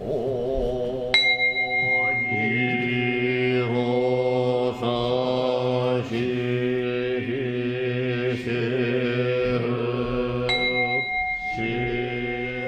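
Japanese Buddhist priests chanting a sutra together in unison on a steady low pitch, as part of the consecration of a new Buddha statue. A small bell is struck about a second in and rings on a clear high tone, and is struck again near the end as the chanting pauses.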